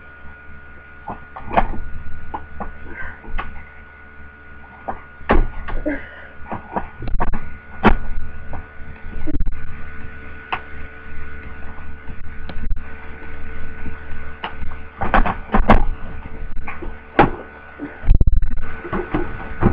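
Irregular plastic knocks, clicks and clunks as the parts of a Performance Power PP20 wet and dry vacuum are fitted back together and clipped on, with a heavy thump near the end.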